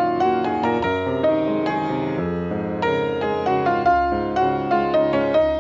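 Background piano music, a melody of quickly played notes.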